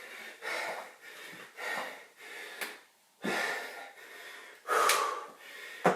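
A man breathing hard and fast, a loud, wheezy breath in or out about once a second, out of breath from a hard bodyweight workout circuit.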